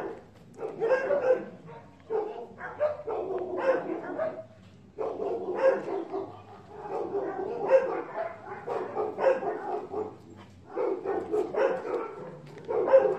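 Dogs barking in repeated bouts of a second or two, with short pauses between.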